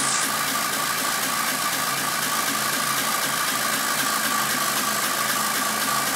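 Tractor engine running steadily at an even speed, with a constant hum.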